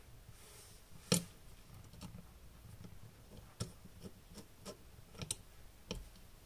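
Faint, scattered clicks and ticks of a precision screwdriver and tiny machine bolts against the metal heatsink of a Sony action camera as the bolts are driven in, the sharpest click about a second in.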